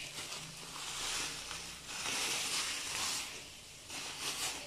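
Plastic packaging wrap being pulled and peeled off a fishing rod by hand, rustling and crinkling in several irregular spells.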